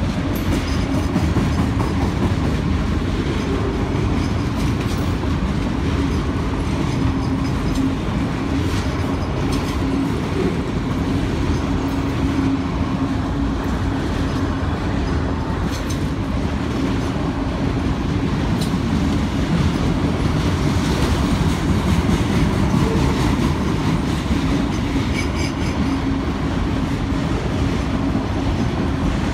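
Freight train of autorack cars rolling past at steady speed: a continuous rumble of steel wheels on rail with rhythmic clacking over the rail joints.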